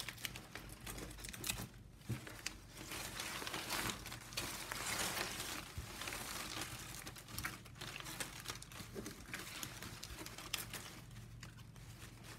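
Stiff plastic strapping band strips rustling, crinkling and clicking against each other as they are woven and wrapped around by hand, in irregular bursts that are busiest about halfway through.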